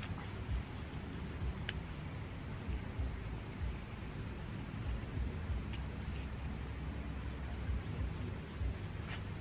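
Steady hiss of a heavy downpour close by, with a low rumble underneath, and insects chirring in a high steady tone. A few faint ticks stand out, once near the start, once in the middle and once near the end.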